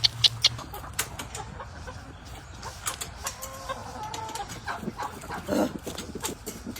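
Chickens clucking, with scattered short clicks and knocks.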